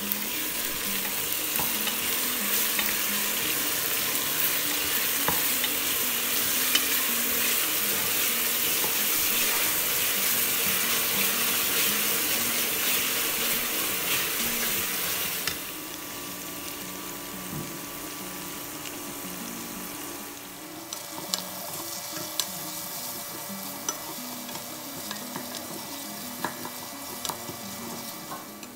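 Onions and red chilli paste sizzling as they fry in a stainless steel pressure cooker, stirred with a wooden spatula. The sizzle drops to a quieter frying about halfway through, with small clicks and scrapes of the spatula in the pot.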